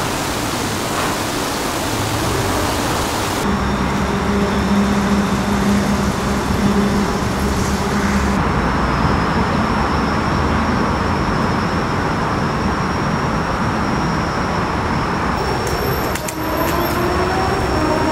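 Steady outdoor background noise with a traffic-like rumble. Its character changes abruptly about three seconds in, again near the middle and again near the end, as if recorded in separate takes.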